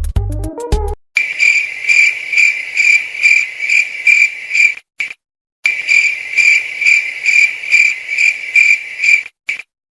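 Cricket chirping sound effect: a steady run of high chirps, about two a second, with a short break about halfway and cutting off near the end. Electronic music plays for the first second.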